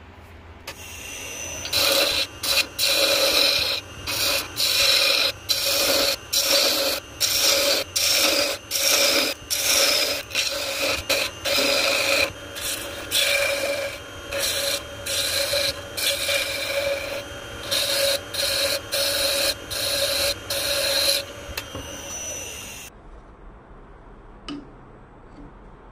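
Hand-held turning tool cutting a spinning ebony blank on a wood lathe: loud scraping strokes, about one and a half a second with brief gaps, over the steady tone of the spinning lathe. The cutting stops about 21 seconds in and the lathe winds down to quiet.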